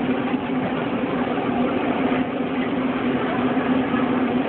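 Steady low machine hum, unchanging, under a constant hiss of background noise.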